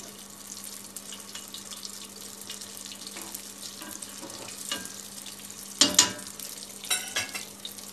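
Pişi (Turkish fried dough) sizzling in hot oil in an enamel pot: a steady hiss with fine crackling as metal tongs turn the pieces. About six seconds in there is a loud, sharp clack from the tongs, with a few more clicks a second later.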